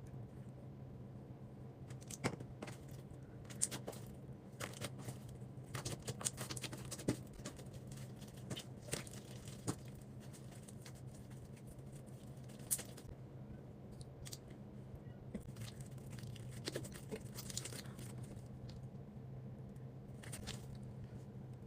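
Slime being handled: faint, irregular clicks, pops and crackles as it is squeezed and pulled apart, over a steady low hum.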